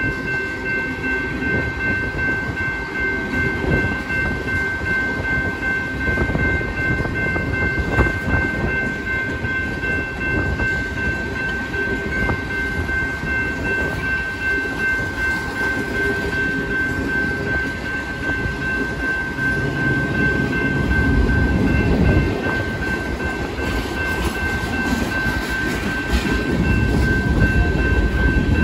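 A freight train of tank cars rolling steadily past, with the rumble and clatter of the cars' wheels on the rails, heavier in the low end twice in the second half. Over it, the crossing's warning bell rings on at an even pitch.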